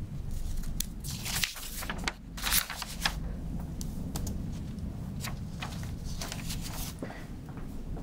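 Paper rustling and handling noises at a lectern, picked up by its microphone: a scatter of short crinkles and soft clicks over a steady low room hum.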